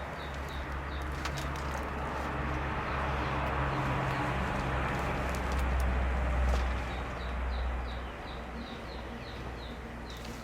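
Birds chirping, a quick run of short high chirps that fall in pitch, over a steady low rumble and background noise.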